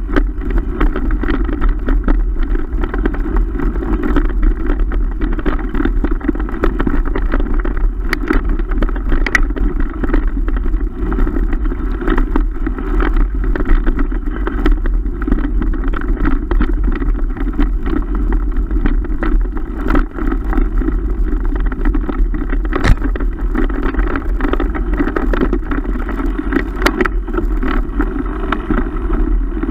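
Mountain bike riding fast over a rutted dirt track, picked up by a camera mounted on the bike or helmet: steady wind rush on the microphone and tyres rolling on dirt, with a few sharp knocks and rattles from bumps.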